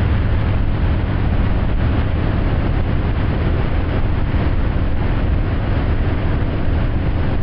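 Wakeboard tow boat running at speed: a steady, loud rumble and rush of engine and water noise.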